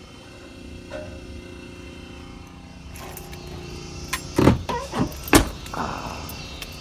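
A vehicle's steady idling hum, with several sharp knocks and clatters from about four to five and a half seconds in.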